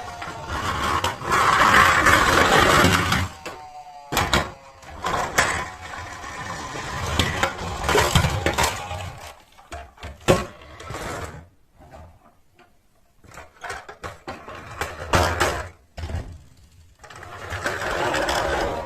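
Toy cars' wheels whirring and rattling as they run down a plastic slope, in several runs with sharp clacks between them.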